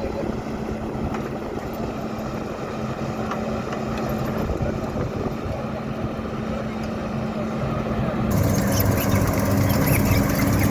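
Heavy diesel road-construction machinery running steadily: a constant engine hum over a wash of mechanical noise. About eight seconds in, the sound abruptly becomes louder and fuller, with a different engine pitch.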